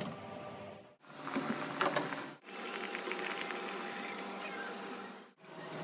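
Small kitchen handling noises from making karak tea: light taps and scrapes, then a steady hiss, in short clips cut apart by brief silences.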